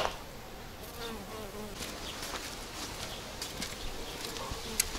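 Bees buzzing around garden flowers, the hum bending up and down in pitch as they fly past.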